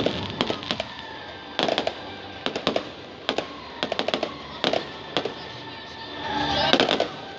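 Fireworks display: aerial shells bursting in quick clusters of sharp bangs, about one cluster a second. Music plays underneath, and a rushing swell builds near the end just before a final cluster of bangs.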